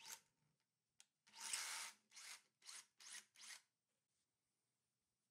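Faint scraping and rubbing as a long SDS masonry bit is drawn back out of a freshly drilled hole in a concrete block, with the drill not running. There is one longer scrape about a second and a half in, then four short ones about half a second apart.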